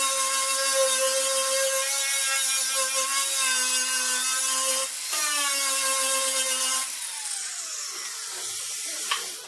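Angle grinder running with a steady high whine as its disc grinds the bare steel of a dented car trunk lid, dipping briefly about five seconds in. About seven seconds in it is switched off and winds down with a falling whine, followed by a single light click near the end.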